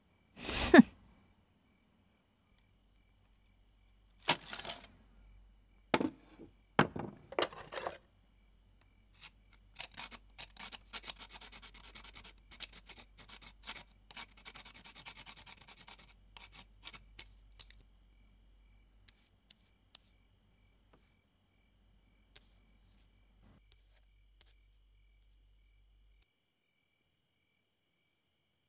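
An ink brush scratching across bamboo slips, a dense run of quick rasping strokes lasting several seconds. Before it come a few sharp wooden knocks.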